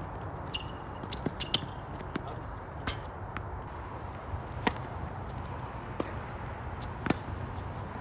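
Tennis ball being struck with rackets and bouncing on a hard court: a string of sharp pops, the loudest a serve about halfway through and another hit near the end. Two short squeaks, typical of tennis shoes on the court, come in the first two seconds.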